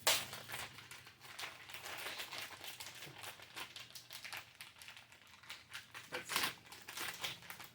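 Plastic snack wrapper crinkling and crackling as it is handled and opened, with a louder crackle at the start and another near the end.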